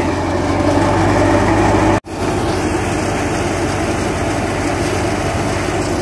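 Tractor-driven wheat thresher running steadily, a loud, even mechanical drone with a low engine hum under it. The sound cuts out for an instant about two seconds in, then the same steady running carries on.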